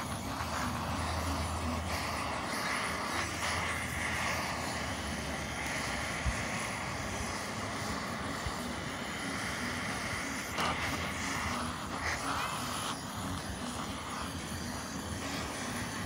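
Handheld gas torch burning with a steady hiss as it is held to charcoal in a small folding grill to light it.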